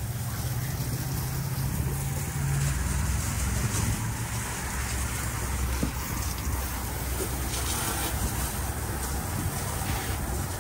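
Boat engine running at idle: a steady low hum, with a wash of wind and water noise over it.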